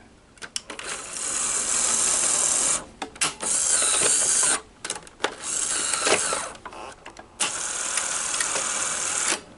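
Sony SL-100 Betamax deck's tape transport running in four short spells, each broken off with clicks as the mechanism shifts mode while it tries to shuttle the tape. The machine will play but will not rewind, a fault the repairer takes to be probably circuit-board related.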